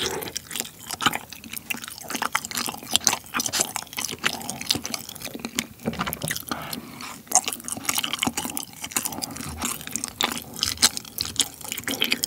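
Close-miked wet chewing with many small mouth clicks and smacks: a person eating a soft, sauce-coated songpyeon rice cake, which he finds lacks chewiness.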